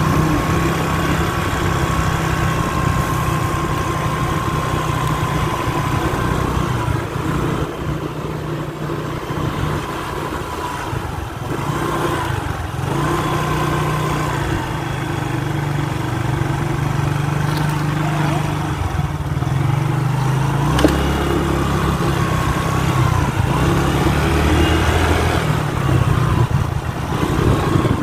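Small motor scooter's engine running while riding along, its pitch shifting up and down every few seconds as the throttle changes.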